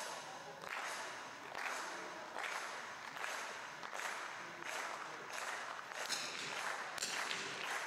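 Spectators clapping together in a slow, steady rhythm, a little more than one clap a second.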